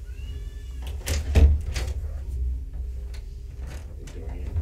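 A door being shut with a heavy thud about a second and a half in, with a few lighter knocks around it. A kitten's short mew is heard right at the start.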